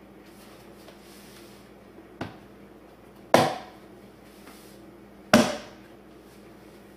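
Plastic blender lid being pressed and knocked down onto a filled blender jar: a light knock about two seconds in, then two louder knocks about two seconds apart, each ringing briefly. The blender motor is not running.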